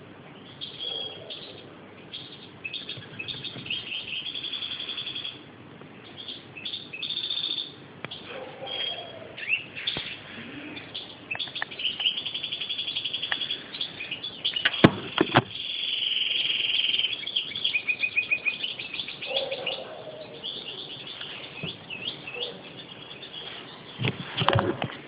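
European goldfinch singing: bursts of quick twittering and fast trills. A few sharp knocks break in about halfway through and again near the end.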